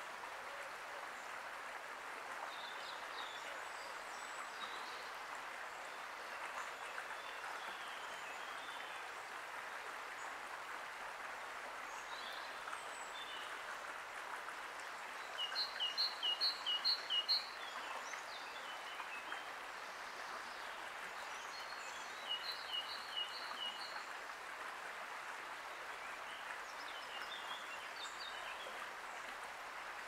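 Steady background noise with scattered faint bird chirps. About halfway through, and again about two-thirds of the way in, a bird gives a quick run of five or six short high notes, each paired at two pitches.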